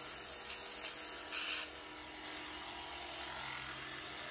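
Slow-running belt grinder sanding a wooden knife handle with a steady hiss. About a second and a half in, the handle comes off the belt and only the quieter hum of the running grinder is left.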